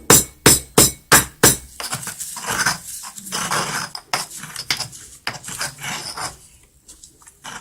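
A pestle pounding karuk leaves in a mortar, about three sharp strikes a second, which stop after about a second and a half. Then comes a stretch of scraping with small clinks as the crushed leaf paste is worked in the mortar.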